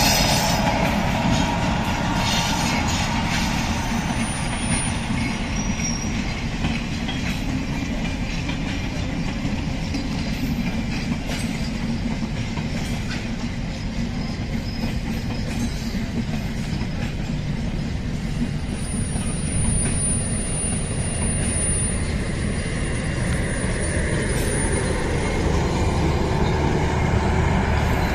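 Passenger coaches of an intercity express train rolling past on the tracks, with a steady rumble of wheels on rail and clicks over the joints. A thin high wheel squeal comes in about two-thirds of the way through.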